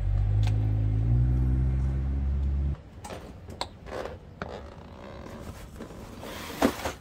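A motor running steadily with a low buzzing hum that steps up slightly about a second in and cuts off abruptly before three seconds, followed by a few light knocks and scrapes.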